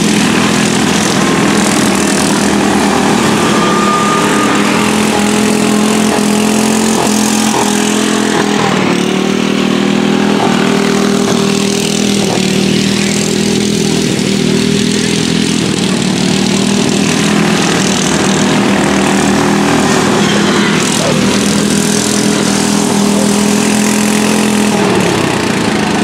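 Modified racing lawn mower engines running hard as several mowers lap a dirt oval, their pitch stepping up and down as they throttle and pass, with one dropping in pitch near the end.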